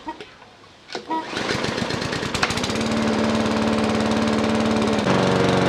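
Gardenline 140cc lawn mower's four-stroke Briggs & Stratton petrol engine pull-started for the first time: it catches about a second in and settles into steady running, a little louder near the end.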